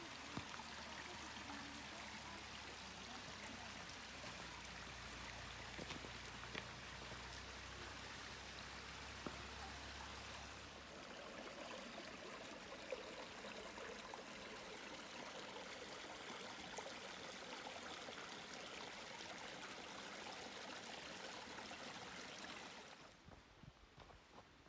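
A small forest stream running and trickling over rocks, a steady rush of water that fades out about a second before the end. A low rumble sits under it for the first half.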